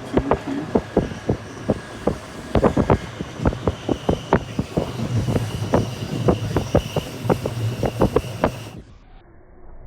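Train running on rails: a steady rumble with many irregular clacks and knocks and a faint high whine. Near the end it cuts suddenly to a much quieter low hum.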